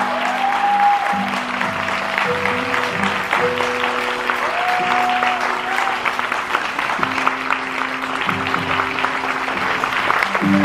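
Audience applauding steadily over curtain-call music, a slow melody of held notes.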